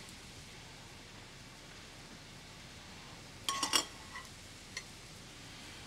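A metal spoon clinks against a glass bowl several times in quick succession about three and a half seconds in, followed by two lighter taps; otherwise quiet room tone.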